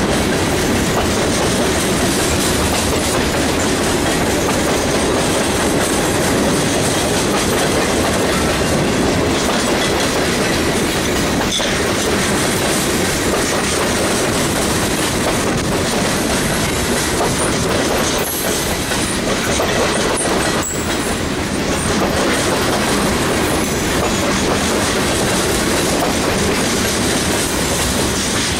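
Freight train cars rolling past, first covered hoppers and then gondolas, making a steady wheel-on-rail noise with a couple of sharper knocks along the way.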